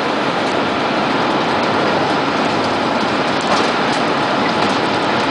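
Roar of a tornado passing close by: a loud, steady rushing rumble that builds slightly. A few faint ticks come through near the middle.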